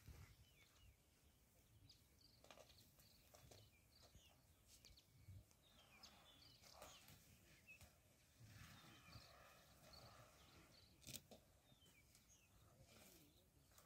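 Faint bush ambience: scattered small bird calls and chirps, with a few soft knocks and one louder pitched call lasting about a second and a half, about nine seconds in.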